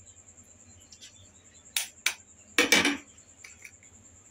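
Egg being cracked against a pan's rim: two sharp taps, then a louder crackling crunch of the shell breaking open.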